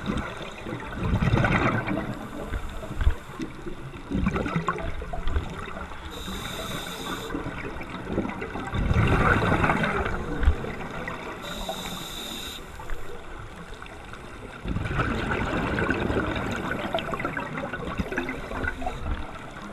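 Scuba diver breathing through a regulator underwater: long bubbling exhalations alternate with short hissing inhalations, a few seconds apart.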